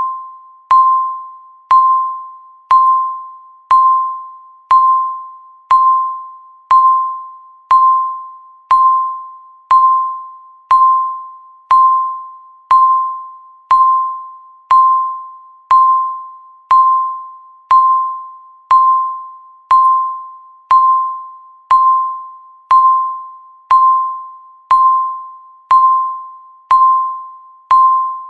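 Countdown-timer beep sounding once a second. Each beep is a single tone near 1 kHz that starts sharply and fades away before the next.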